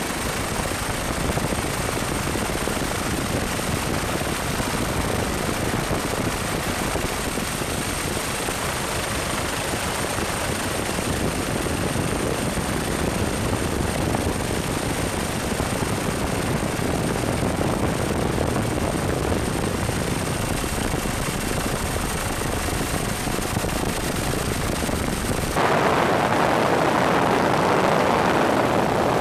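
Helicopter engine and rotor noise heard from aboard the aircraft: a steady rushing drone with a faint high whine. About 26 seconds in it changes abruptly to a louder, fuller rush and the whine drops out.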